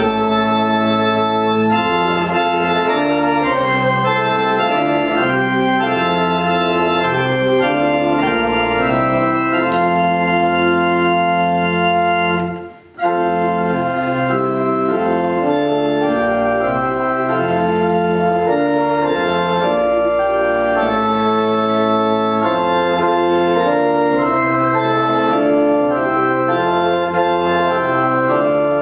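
Organ playing a hymn in sustained, slowly changing chords, breaking off briefly about halfway through before going on.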